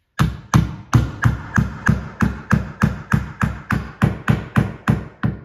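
Claw hammer tapping toggle bolts up through a wooden mounting board into ceiling drywall: a steady run of sharp taps, about three a second.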